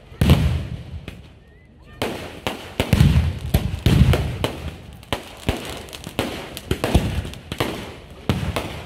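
Fireworks bursting overhead: a string of sharp bangs and crackles, with heavy booms just after the start and again around three and four seconds in, and a short lull about a second in.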